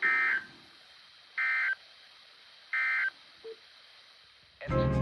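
Emergency Alert System end-of-message: three short, identical bursts of screeching digital data tone about a second and a half apart, closing a snow squall warning. Music starts near the end.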